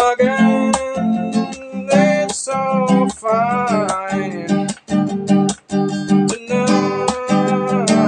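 Steel-string acoustic guitar with a capo strummed in a steady rhythm, with a voice singing over it in a gliding line around the middle.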